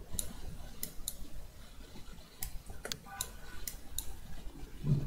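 Computer mouse clicking: a string of sharp, irregular clicks, about eight in all, as points are selected and edited in animation software. A short low thump near the end.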